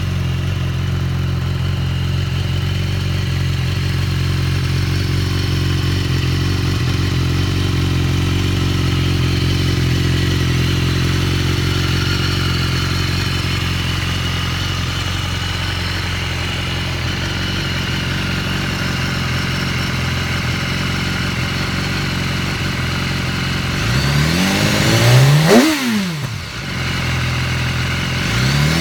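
2014 BMW S1000RR's inline-four engine idling steadily through an Akrapovic exhaust. Near the end it is revved: a quick rise and fall in revs, then a second rev starts just before the end.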